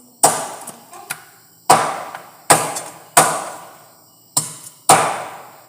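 A heavy knife chopping through chicken on a chopping board: six hard strikes, each ringing out as it fades, the fifth lighter than the rest.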